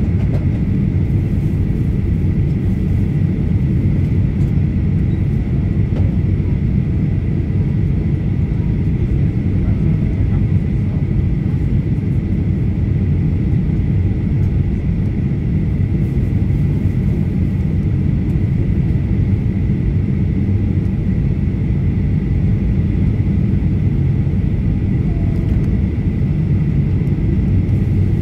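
Steady cabin roar inside a Boeing 737-800 on its descent to land: the low rush of its CFM56-7B jet engines and the air over the fuselage, with a thin, steady high whine above it.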